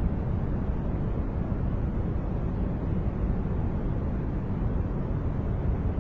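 Continuous generated masking noise, a steady, unchanging rumbling hiss heavy in the low end with little treble, closer to brown noise than to true white noise.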